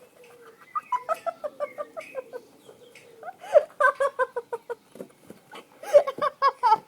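A person laughing in three bursts of quick, rhythmic "ha-ha-ha" pulses, the last burst the loudest.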